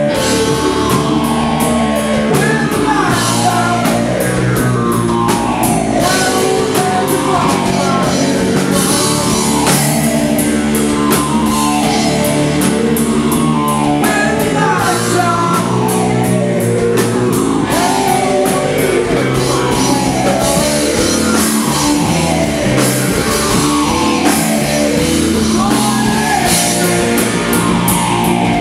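Stoner rock band playing live and loud: distorted electric guitars, bass and drum kit, with a man singing into the microphone over a riff that falls in pitch again and again.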